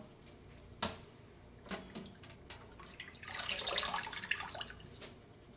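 Hands rinsing mixed greens in a stainless steel sink of water: a few separate small splashes and drips, then past the middle a longer splash and trickle as a handful of greens is lifted out and water runs off it.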